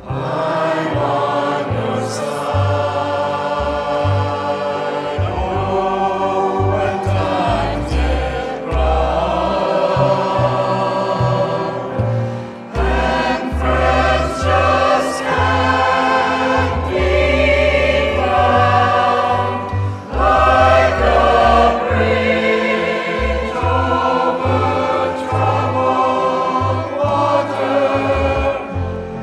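A choir singing with accompaniment that carries a deep bass line, the low notes changing every second or so.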